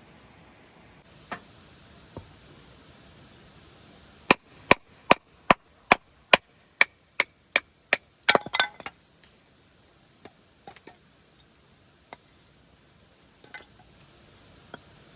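Firewood being split: about ten sharp, evenly paced strikes, then a short splintering crackle as the wood gives way, followed by a few light knocks of wood pieces.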